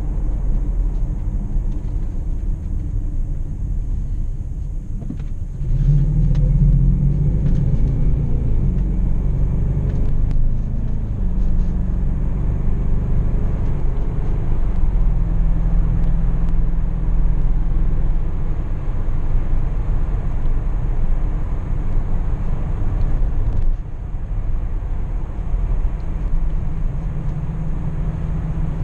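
BMW X5 4.4i's 4.4-litre V8 and tyre noise on the move. About six seconds in the engine note gets louder and climbs as the car accelerates, then it settles into a steady drone. The sound eases off a little near the end.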